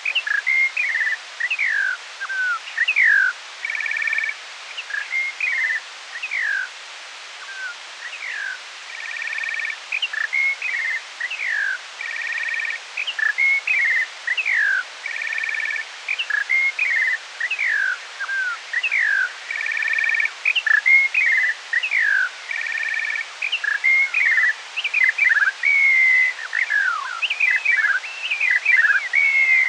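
Skylark song played back at half speed, so slower and lower than in life: an unbroken stream of quick sliding whistled notes, with a buzzy two-toned note coming back every three to four seconds.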